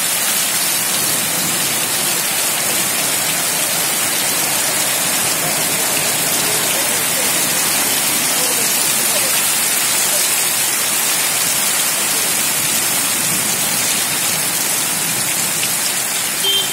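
Heavy rain pouring onto a waterlogged street, a steady, even hiss.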